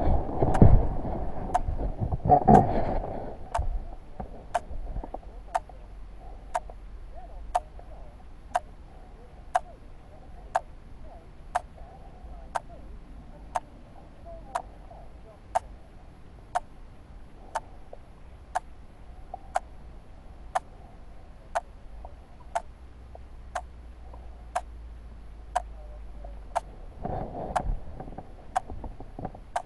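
A camera watch ticking about once a second, heard close up through its own microphone, with a few louder knocks and rustles in the first three seconds.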